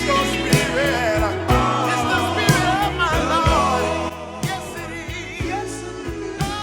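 A gospel song: a solo voice sings a wavering, ornamented melody over bass and drums keeping a beat about once a second, dropping a little in level partway through.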